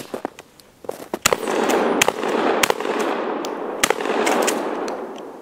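Mossberg 590A1 pump-action shotgun firing a quick string of about four shots, roughly a second apart, starting about a second in, with the echo of each blast filling the gaps between them.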